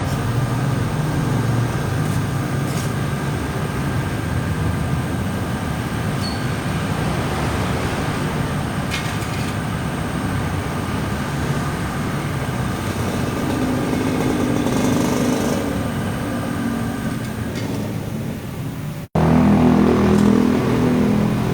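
Steady motor-vehicle noise, motorcycle and road-traffic engines running continuously, with a brief break and a louder stretch of engine hum near the end.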